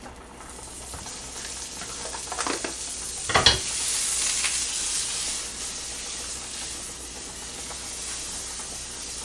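Margarine melting and sizzling in a hot frying pan on a gas hob, the sizzle building over the first few seconds and then easing to a steady hiss. A single clunk of the pan about three and a half seconds in, as it is lifted and tilted to spread the fat.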